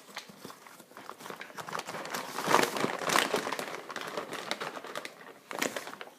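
Dog food packaging crinkling and rustling as it is handled, loudest between about two and a half and three and a half seconds in, with a brief crackle again near the end.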